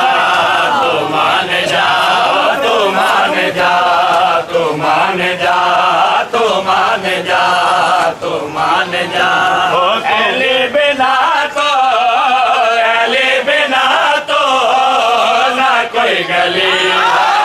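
A group of men chanting a noha, a Shia mourning lament, loudly in unison, with scattered sharp slaps of matam chest-beating.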